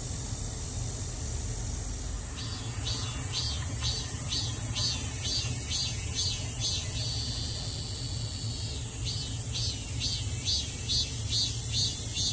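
Cicadas: a steady high-pitched chorus, and about two seconds in a nearer cicada starts a rhythmic pulsing call, about two to three pulses a second. Its call runs into one steady drone for about two seconds, then breaks back into pulses. A low rumble runs underneath.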